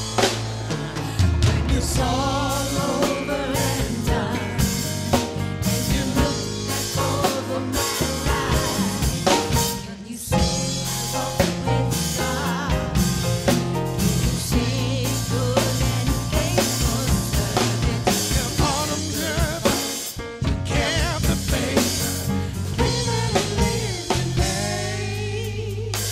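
Live gospel band playing: piano, electric bass and drum kit with a steady beat, with voices singing over it.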